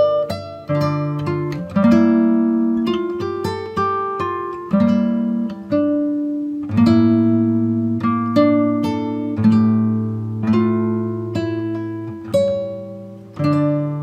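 Background music of plucked acoustic guitar, note after note struck and left to ring and fade.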